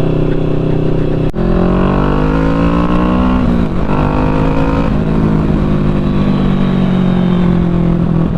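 Motorcycle engine heard from the rider's seat, pulling away through the gears. A sharp click comes just over a second in, then the revs climb, drop at a gear change about three and a half seconds in, and climb again before settling to a steady cruise.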